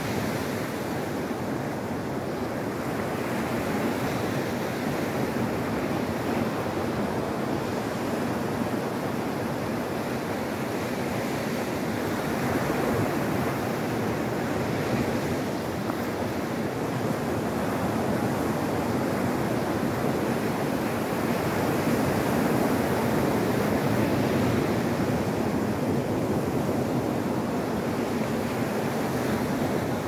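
Sea waves breaking and washing up a pebble beach: a continuous rush of surf that swells a little louder now and then.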